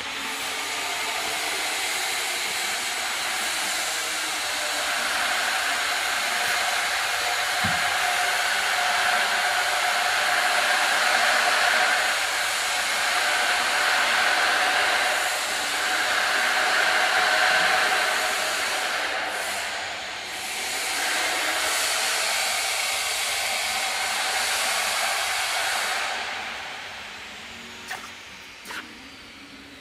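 Steady hissing, whooshing machinery noise that eases off near the end, followed by a couple of light clicks.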